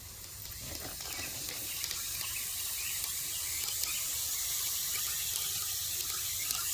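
Water running steadily into the top tier of a Greenstalk vertical planter and soaking down through the soil, a hiss that builds over the first couple of seconds and then holds steady.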